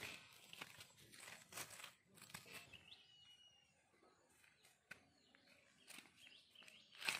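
Faint scattered rustles and clicks of handling, with one short high chirp about three seconds in.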